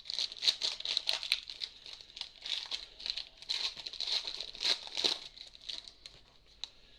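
Crinkling and tearing of a trading-card pack's foil wrapper as it is ripped open: dense irregular crackling that thins out after about five seconds.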